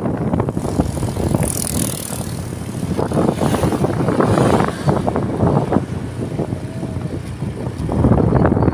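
Motorcycle carrying four riders on the move: heavy wind buffeting on the microphone over the running engine.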